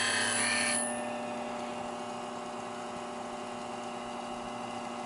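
Hercules bench grinder's 350-grit CBN wheel grinding the high-speed steel tip of a bowl gouge: a bright, hissing grind that cuts off under a second in as the tool is lifted from the wheel. After that the grinder runs on freely with a steady hum.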